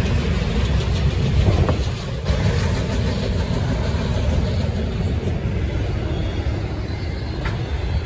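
Freight train passing, its autorack cars rolling by on the rails with a steady low rumble.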